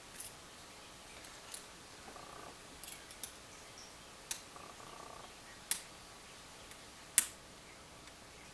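Lock picking: small, sharp metallic clicks and ticks as a hook pick and tension wrench work the security pins of a padlock, about eight irregular clicks, the loudest about seven seconds in.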